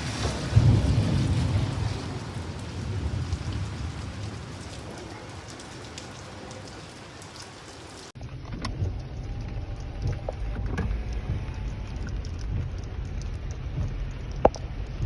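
Steady rain falling, with a strong low rumble in the first couple of seconds. About eight seconds in the sound changes abruptly to rain with scattered sharp drop ticks, and one loud tap near the end.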